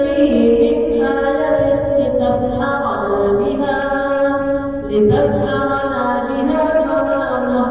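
Quranic verses recited in a slow melodic chant by a single voice, holding long notes that move to a new pitch every second or two.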